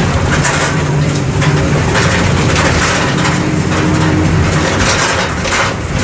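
MWM 6.12 TCE inline-six turbo diesel of a Volksbus 17-230 EOD city bus running steadily, heard aboard the bus, with rattling and clatter over the low engine note.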